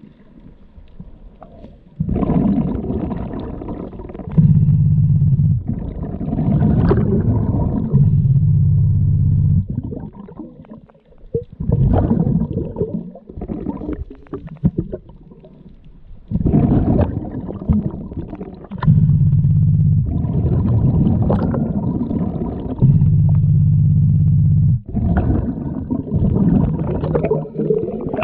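A diver's breathing through a scuba regulator, heard underwater: repeated gurgling, rumbling bursts of exhaled bubbles, alternating with spells of a low, steady hum, in a cycle of a few seconds.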